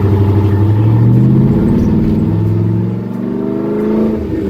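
LS-swapped 1978 Corvette's 5.3-litre V8 with a Stage 3 cam accelerating, its pitch rising, then dropping about a second and a half in as the manual gearbox shifts up, then rising again before falling off near the end.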